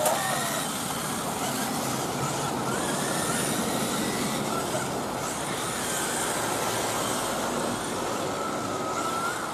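Electric 1/10-scale on-road RC touring cars racing: faint high motor whines that rise and fall as the cars accelerate and brake, over a steady background noise.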